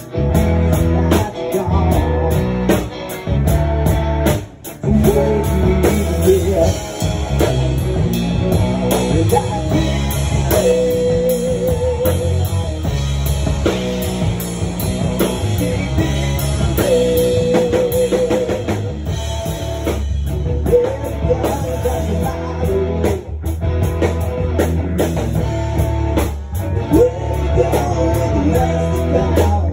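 Live rock band playing: electric guitars over a drum kit, with a short break about four and a half seconds in.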